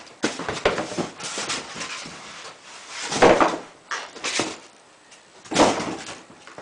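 Clicks, knocks and rustles of kit parts being handled during assembly, with two louder rustling bursts about three seconds in and again near the end.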